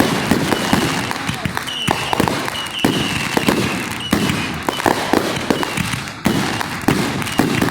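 Fireworks display: a dense, irregular run of bangs and crackling reports from aerial shells. A thin, wavering high whistle runs through it from about two to four seconds in.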